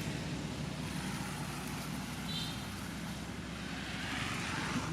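Steady low engine rumble, like a motor vehicle running nearby, with a brief high chirp about two seconds in.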